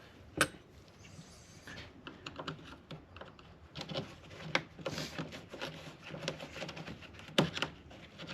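Scattered light clicks and taps of plastic trim clips being pried loose with a screwdriver, with two sharper knocks, one just after the start and one near the end.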